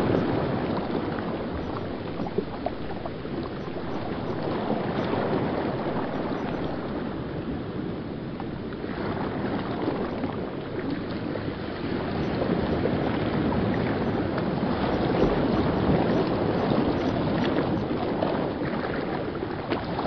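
River water rushing and churning over rocks in a whitewater rapid: a steady rushing noise that grows a little louder in the second half.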